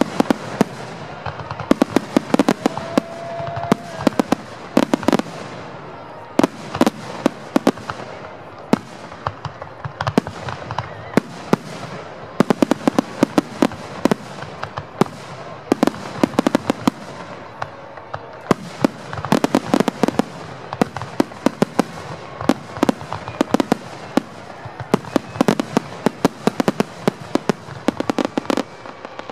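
Aerial firework shells bursting in a dense, unbroken barrage, several sharp bangs a second.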